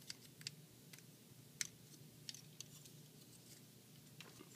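Faint, scattered clicks of small plastic toy parts being handled: a gun accessory being fitted into a transforming robot figure's hand. About half a dozen short clicks at irregular intervals.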